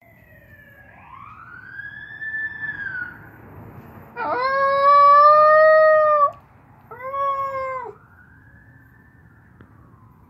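A siren wailing up and down, answered by a maltipoo howling twice: one long, loud howl of about two seconds, then a shorter one. The siren is fainter than the howls and falls again near the end.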